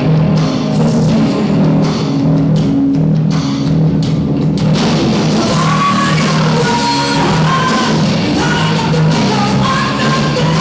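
Live rock band playing, poorly recorded: electric guitars and bass over a drum kit, with a woman singing from about five seconds in.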